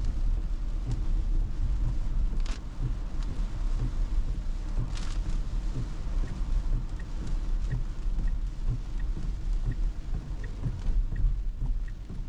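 Inside a Tesla's cabin in rain: a steady low road-and-tyre rumble with rain hiss, and two brief swishes in the first half. From about halfway on, a turn signal ticks evenly, about once every 0.7 seconds, as the car signals to turn.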